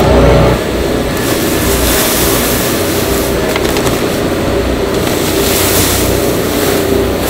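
A loud, low machine hum cuts off about half a second in, giving way to steady factory machinery noise and the hiss of sesame seeds poured from a paper sack into a stainless-steel bin.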